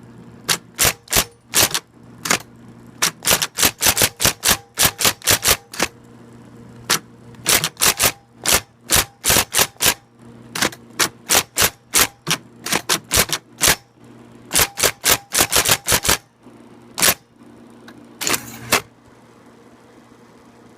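IBM Correcting Selectric III electric typewriter typing: its typeball strikes in quick runs of several sharp clacks a second with short pauses between runs, over the steady hum of its running motor.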